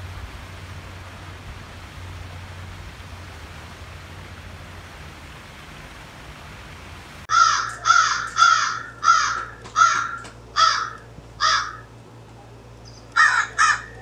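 Steady low rumble and hiss, then a crow cawing: seven loud caws about half a second apart starting about halfway through, a pause, and two more quick caws near the end.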